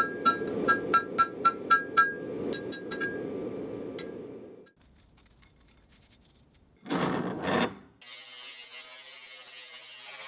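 Hammer blows on a red-hot steel billet on an anvil, about four ringing strikes a second for two seconds, then a few sparser taps, over a steady low rush. After a near-quiet pause comes a short loud scrape about seven seconds in, and then an angle grinder runs with a steady hiss for the last two seconds.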